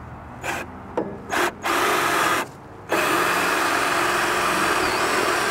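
Power drill boring a hole through a utility trailer's wooden deck boards. It starts in a few short bursts, pauses briefly, then runs steadily from about three seconds in.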